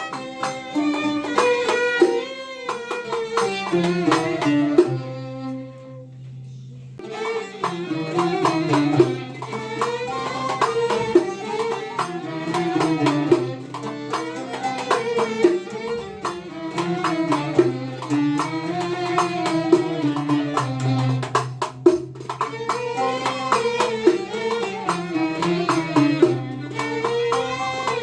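Background traditional-style music: a melody over a held low note, with hand percussion keeping the beat. The music thins out for about two seconds around five seconds in, then resumes.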